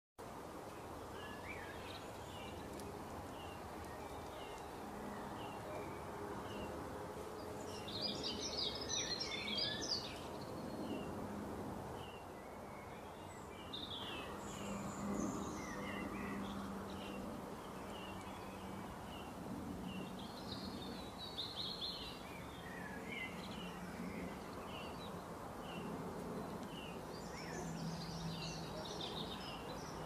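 Wild birds chirping and singing over steady outdoor ambience. Short chirps repeat throughout, with a busier burst of song about eight to ten seconds in and a low steady drone underneath.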